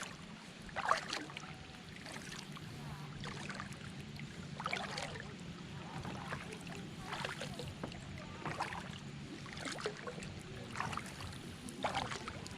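Kayak paddle strokes: the blades dip and splash into the water about once a second, in an even rhythm, over a steady low hum.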